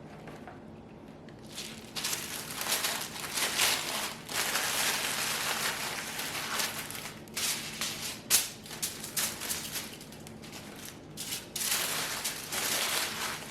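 Sandwich wrap crinkling and crackling in irregular bursts as it is folded by hand around a sandwich, starting about a second and a half in and easing off briefly near the end.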